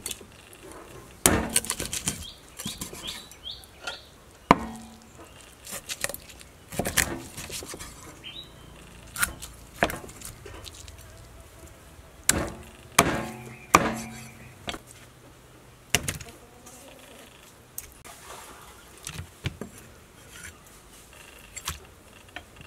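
Kitchen knife chopping a snakehead fish into chunks on a wooden chopping board: sharp chops of the blade through flesh and bone into the wood, coming irregularly, some in quick clusters and some a few seconds apart.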